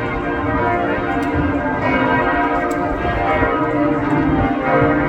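Cathedral church bells ringing a full peal: many bells sounding at once in a dense, unbroken wash of overlapping tones.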